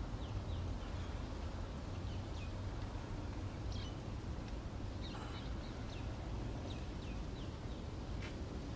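Outdoor ambience: a steady low rumble with faint, short chirps of small birds scattered throughout.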